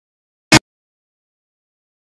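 Dead silence broken once, about half a second in, by a single sharp click.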